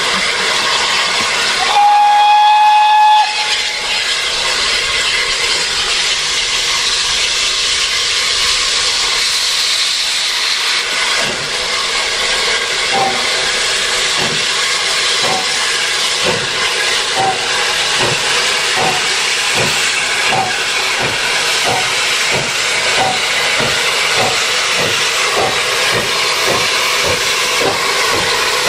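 Hunslet Austerity 0-6-0 saddle-tank steam locomotive starting away with its train. A single steam whistle blast of about a second and a half comes about two seconds in, over a steady hiss of steam from the open cylinder drain cocks. From about eleven seconds in, slow, regular exhaust beats begin.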